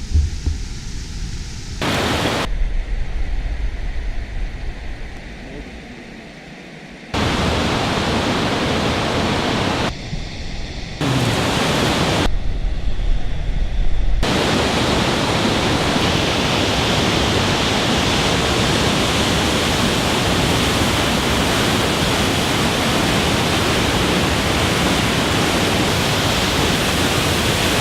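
Rushing water as a steady, even noise without pitch. In the first half it jumps abruptly in level several times; from about halfway on it holds one long, unbroken rush.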